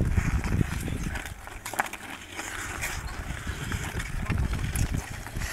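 Ice skates scraping and carving on rough outdoor pond ice during a pickup hockey game, with a few sharp clacks of hockey sticks and puck. A low rumble runs underneath.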